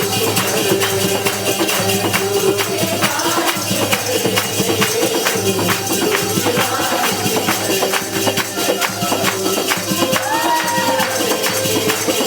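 Music of a Hindi Christian worship song: a band playing with a steady shaken tambourine rhythm and sustained pitched melody lines, with no clear singing.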